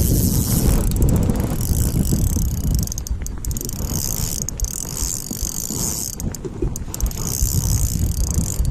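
Fishing reel being cranked to retrieve line, its gears giving a fast clicking whir that stops and starts, with wind buffeting the microphone.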